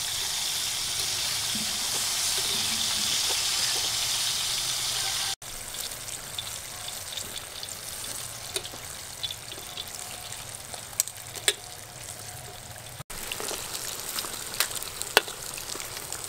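Wontons deep-frying in hot oil in a wok: a loud, steady sizzle that drops abruptly about five seconds in to a quieter crackle with scattered sharp ticks.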